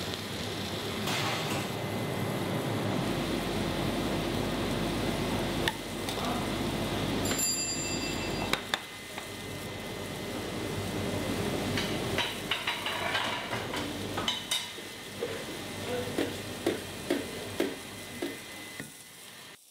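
Restaurant kitchen at work: a steady sizzle of food frying, with utensils and dishes clattering. A short electronic beep sounds about seven seconds in, and a run of sharp knocks fills the last few seconds.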